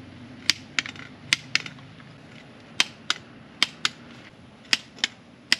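Hand ratchet clicking in short strokes while driving bolts into a strut top mount: sharp metallic clicks, mostly in pairs, about one pair a second.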